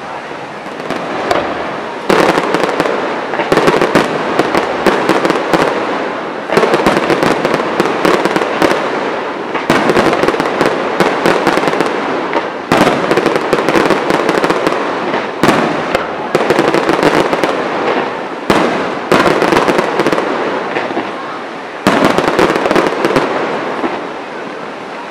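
Aerial fireworks shells bursting one after another, a sharp bang every one to three seconds, each followed by a dense crackling that fades away.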